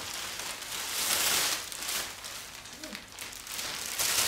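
Rustling and crinkling of a shopping bag and plastic packaging being handled. The sound comes and goes in several swells.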